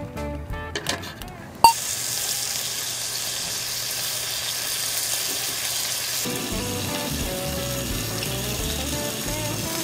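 Beef steak sizzling on a small iron griddle, a cut piece pressed cut-side down to sear. The steady sizzle starts abruptly after a sharp click about a second and a half in. Guitar music plays before it and comes back faintly underneath from about six seconds.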